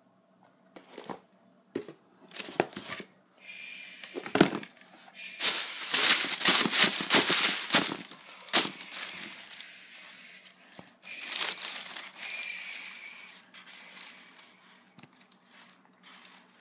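Tissue paper crinkling and rustling as hands dig through the packing in a shoebox. It comes in uneven bursts, loudest from about five to eight seconds in and again around eleven seconds in.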